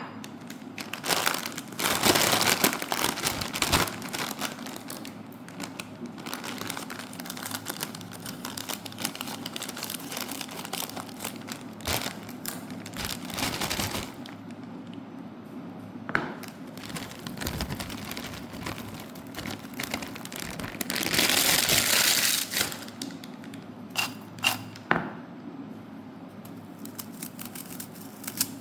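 Plastic snack packets crinkling and tearing as they are handled close to the microphone, in irregular bursts, with a long loud stretch of crinkling about two-thirds of the way in and a few sharp cracks soon after.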